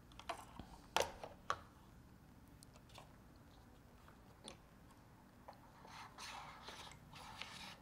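Faint handling sounds of drone assembly: a few light clicks and knocks as a landing gear module and bracket are fitted against a carbon-fibre frame, with soft scraping near the end.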